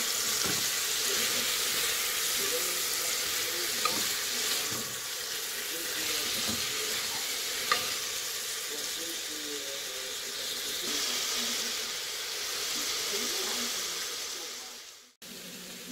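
Calabresa sausage, smoked pork loin, onion and garlic sizzling as they fry in oil in an aluminium pot, stirred with a spoon that clicks lightly against the pot twice. The sizzle fades out near the end.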